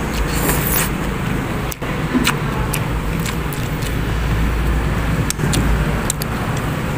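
Spoon clinking and scraping against a ceramic soup bowl as someone eats, a handful of light clicks spread through. Under them runs a steady background noise with a low rumble.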